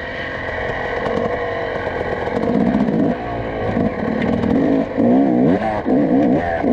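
Dirt bike engine revving under the rider's throttle, its pitch swinging quickly up and down, getting louder and choppier over the last couple of seconds.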